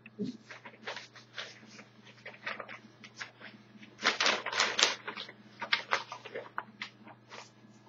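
Irregular light clicks and rustles of things being handled at a desk, thickest about four seconds in, over a steady low electrical hum.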